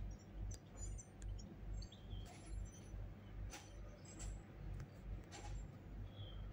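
Faint outdoor ambience: a low throb pulsing about twice a second, with scattered short high chirps, likely small birds, and a few faint clicks.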